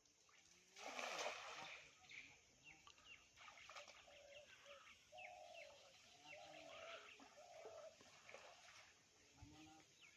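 Faint birdsong: many short chirps and a run of repeated short calls, with a brief splash of water about a second in.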